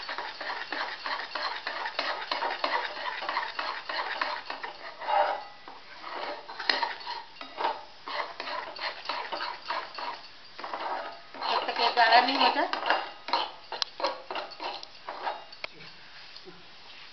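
Metal spatula stirring fast in a metal kadhai, scraping and clinking against the pan stroke after stroke as it works a thickening chocolate-and-biscuit mixture. There is a louder run of scraping about twelve seconds in.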